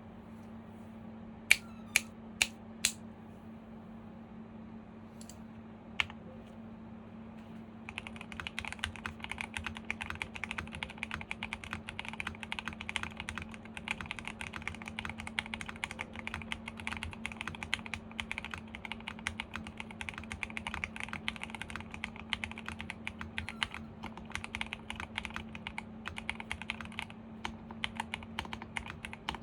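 Fast, continuous typing on a Phase One 65 custom mechanical keyboard with a polycarbonate plate, Sp Star Polaris Gray switches, PBT keycaps and full foam, giving a muted clack. The typing starts about eight seconds in, after four loud, sharp clicks in quick succession near the start and one more at about six seconds.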